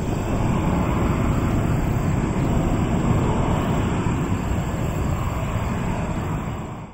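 Jet airliner engines at takeoff thrust, heard as a loud steady rumble that cuts off suddenly near the end.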